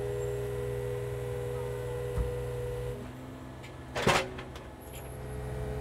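Takeuchi mini-excavator's diesel engine running steadily while its bucket and thumb hold a boulder. A steady whine stops about three seconds in. A loud clunk about four seconds in comes as the boulder is set down on the ground.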